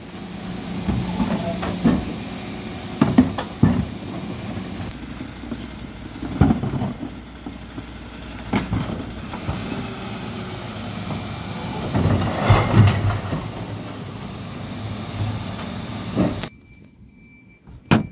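Mercedes Econic refuse lorry running, with its Terberg rear bin lift tipping and lowering a pair of wheelie bins: a steady engine hum under repeated knocks and clatter of the bins against the lift. The noise drops away sharply near the end.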